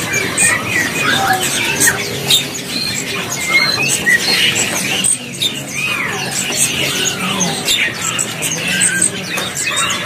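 Many caged songbirds chirping and whistling at once, a dense overlapping chorus of short calls.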